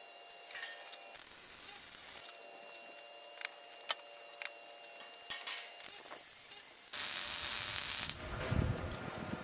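A few light clicks and knocks of handling, then electric arc welding on the steel smoker cabinet: a sudden loud burst of sizzling crackle about seven seconds in, lasting about a second.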